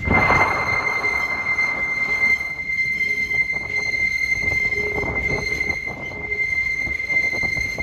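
Passenger train's steel wheels squealing against the rails on a curve: one steady high whine over the rumble and clatter of the cars rolling along the track.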